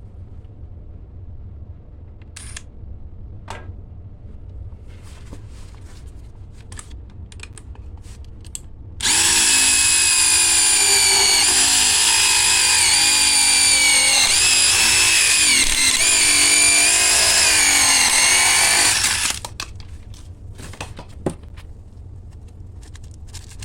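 DeWalt impact driver spinning a DeWalt Impact Connect pipe-cutter attachment to cut through a pipe: a loud, steady high whine lasting about ten seconds, dipping in pitch a few times as it bites under load. Light clicks and handling knocks come before and after it.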